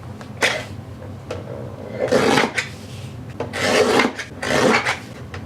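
About five short rasping, rubbing strokes of uneven length as a piece of non-slip mat is cut and worked into a pad.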